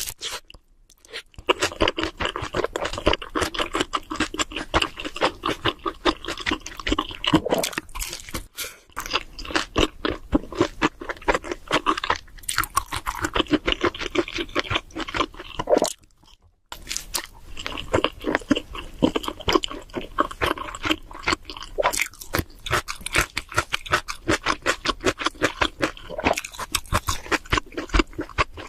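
Close-miked chewing of cheese seafood pizza: the crust crunches under rapid mouth clicks, in long runs broken by a short pause about halfway through.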